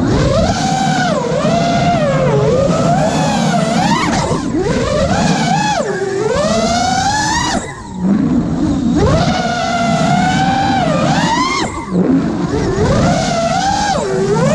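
5-inch FPV quadcopter's brushless motors whining, the pitch sliding up and down with the throttle over a low rushing noise. The sound drops out briefly three times, about four and a half, eight and twelve seconds in.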